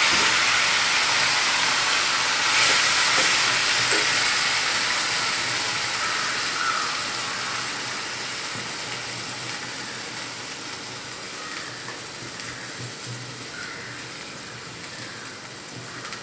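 Marinated chicken pieces sizzling in hot ghee in a steel kadai. The sizzle is loud at first and fades gradually.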